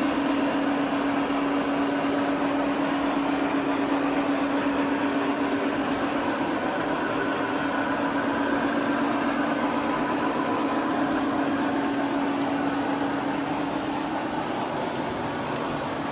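Model train running on its layout track: a steady whirring rumble of wheels and motor with an even hum. It eases off slightly near the end.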